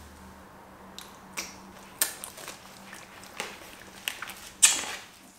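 A few short kissing smacks and light handling clicks on a dog and its plastic cone, the loudest smack near the end.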